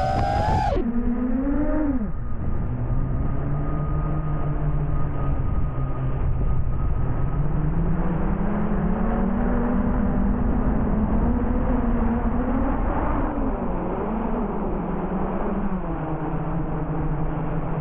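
FPV quadcopter's brushless motors running in flight, a muffled buzzing hum whose pitch rises and falls as the throttle changes. A higher wailing tone cuts off within the first second, as the sound turns muffled.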